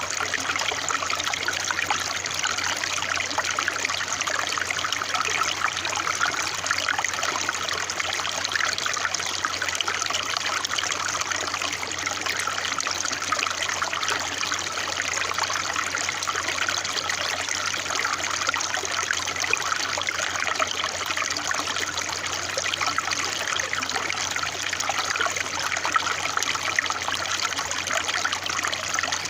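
Running water trickling and splashing steadily, an even, unbroken rush with no pauses.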